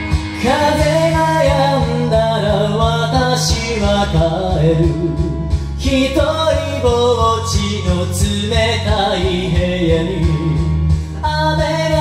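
Karaoke: a person singing a slow ballad into the microphone over the backing track, the voice coming in about half a second in.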